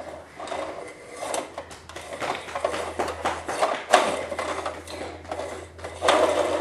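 Scattered clicks and knocks of a plastic toy pickup truck being handled and pushed on a hardwood floor, with one sharper knock about four seconds in, over a faint steady low hum.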